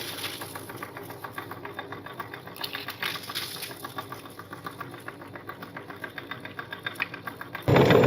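Electric meat grinder running with a rapid, even ticking, likely crunching through cookies. Near the end it suddenly gets much louder.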